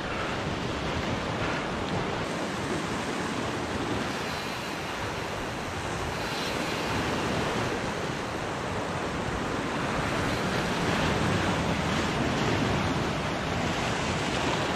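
Sea waves washing against shoreline rocks, with wind on the microphone: a steady rushing noise.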